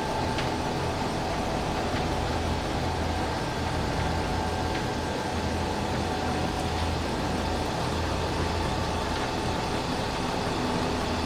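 Workshop vehicle lift's motor running steadily, raising the van body clear of the rear axle that rests on a jack below. It is a constant hum with a thin, steady whine.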